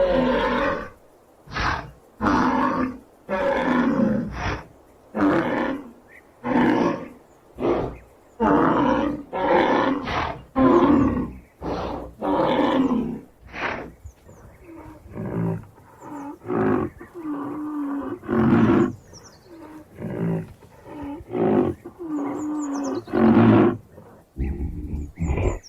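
Rhinoceros calling over and over, which the title calls trumpeting: short harsh calls about one a second, giving way about fourteen seconds in to softer calls with a clear, held pitch.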